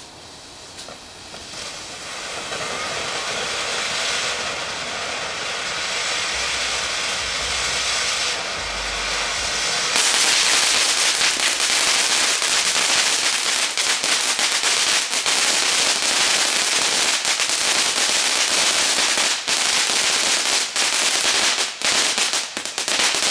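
Lit consumer firework hissing, growing louder over the first few seconds, then breaking into a loud, dense crackle of rapid sharp pops about ten seconds in.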